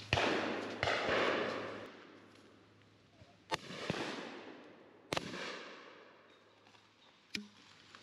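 Shotgun shots at driven pheasants, each bang trailing off in a long echo through the woods: two close together right at the start, the first the loudest, then single shots about three and a half and five seconds in, and a fainter, sharper shot near the end.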